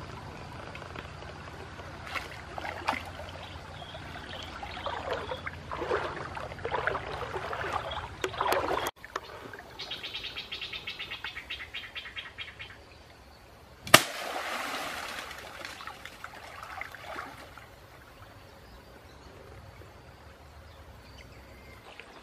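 Water splashing and sloshing in a shallow river as a man wades and jabs with a wooden spear, cut off abruptly about nine seconds in. A fast, high ticking follows for a few seconds, then a single sharp click, the loudest sound, and a quieter steady outdoor hiss.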